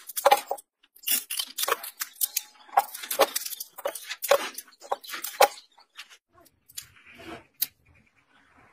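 Scissors cutting through a plastic CD: a quick series of sharp snips for about five and a half seconds, then a few fainter clicks as the cut disc is handled.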